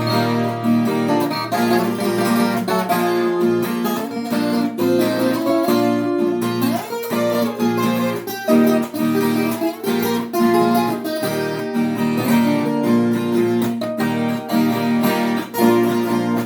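Viola caipira, the Brazilian ten-string folk guitar, playing a plucked instrumental passage with no singing.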